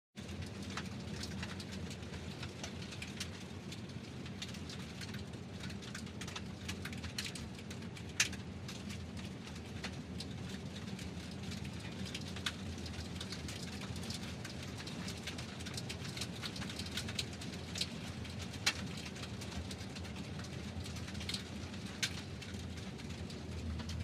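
Car tyres rolling over a gravel road strewn with pebbles: a steady low rumble under a continuous crunching hiss, with scattered sharp clicks from stones, the strongest about 8 and 18 seconds in.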